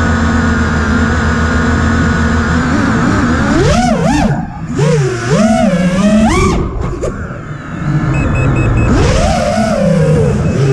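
FPV quadcopter's electric motors and propellers, heard through its onboard camera: a steady whine as it sits at low throttle for the first few seconds, then a pitch that swoops up and down again and again as the throttle changes through the lift-off and flight.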